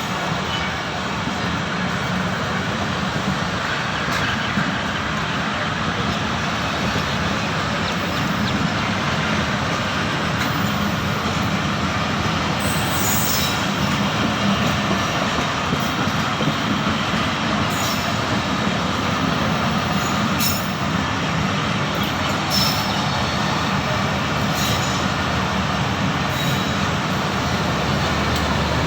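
A train rolling past: a steady rumble of wheels on the rails, with a few sharp, brief high clicks in the second half.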